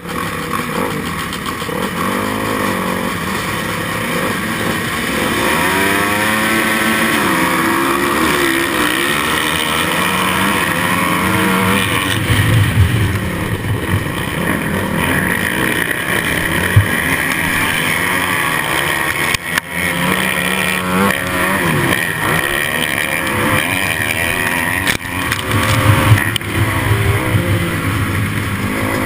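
Motocross dirt bikes racing: the rider's own engine revving hard, its pitch climbing and dropping again and again as it shifts through the gears, with the engines of the surrounding pack of bikes mixed in.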